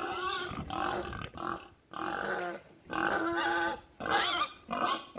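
Repeated pig-like squeals and grunts, about seven short bursts with brief gaps between them.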